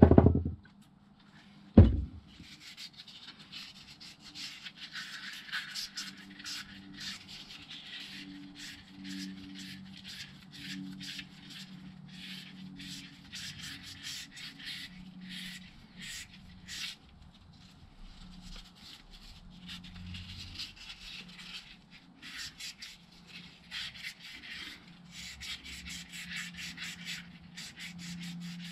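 Very fine wet-and-dry abrasive paper with paraffin rubbed by hand on a motorcycle rear suspension pin, in irregular short strokes, cleaning up light surface marks. There is a loud knock at the very start and another about two seconds in.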